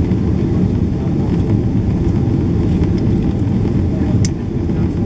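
Steady low rumble of a jet airliner's cabin during the climb after takeoff: engine and airflow noise heard from a window seat. A single short click about four seconds in.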